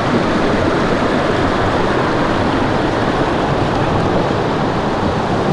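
Loud, steady rush of fast-flowing creek water pouring through a concrete culvert, heard from inside the tunnel with the water churning around wading feet.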